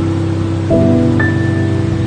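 Slow ambient relaxation music: sustained chords that change about 0.7 s in, with a single high bell-like note entering near the middle, over a steady hiss of sea waves.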